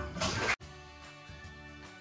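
Water splashing in a bathtub as a toddler plays, cut off abruptly about half a second in. Quiet background music with held notes follows.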